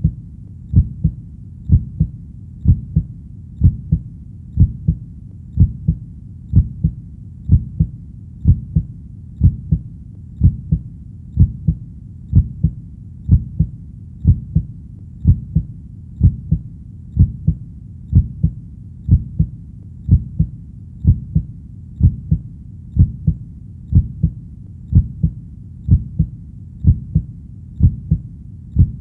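Heartbeat sound: a steady lub-dub double thump about once a second, over a continuous low rumble.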